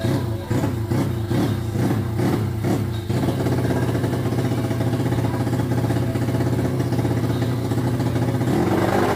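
Small drag-racing motorcycle engine running, blipped on the throttle about twice a second for the first three seconds, then held steady before a short rev near the end. The freshly rebuilt engine is still misfiring, its owners say.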